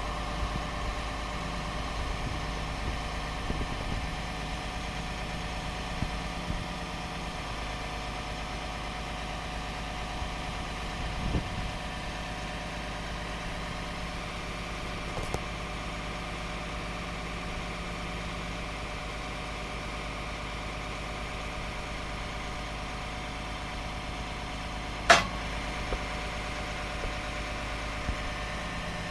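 The truck's PACCAR PX-8 8.3-litre diesel running steadily at idle, driving the hydraulic crane while its boom telescopes out, with a steady whine over the engine. One sharp click near the end.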